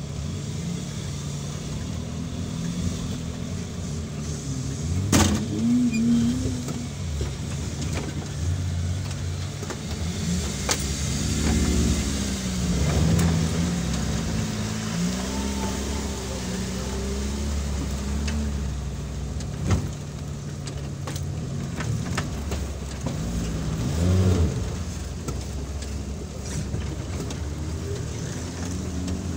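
Off-road vehicle's engine running at low revs while crawling over a rough track, its pitch rising and falling several times with the throttle. There is a sharp knock about five seconds in and another about twenty seconds in.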